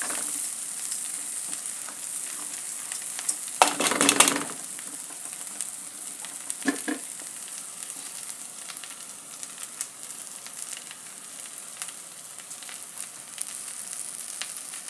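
Rice with carrots and peas frying in coconut oil in a cooking pot, a steady sizzle. A clatter of knocks and scrapes from stirring against the pot comes about four seconds in, with a shorter one near seven seconds.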